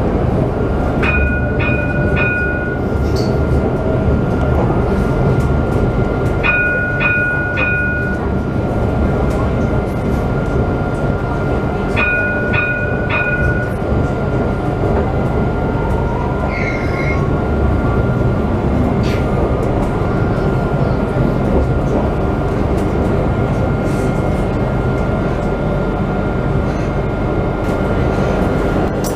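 Tram running along its track, heard from inside the driver's cab: a steady rumble of wheels and motors with a thin steady whine. Three times in the first half, a group of three quick electronic beeps sounds over it.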